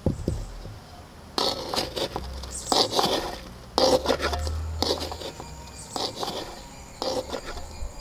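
Spoon stirring sugar-coated winter melon candy cubes in a metal pan, in several short scraping, gritty strokes as the sugar crusts onto the pieces.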